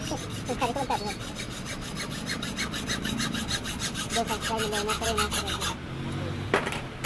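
Hacksaw sawing through a metal shock absorber tube clamped in a bench vise, in rapid, even strokes that stop about six seconds in. A single sharp knock follows near the end.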